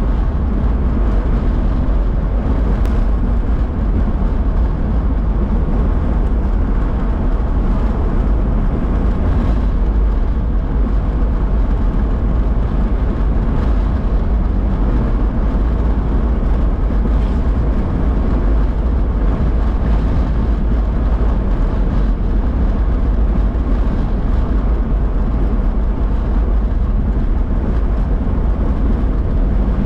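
Steady low rumble of a car's engine and tyres heard from inside the cabin while driving.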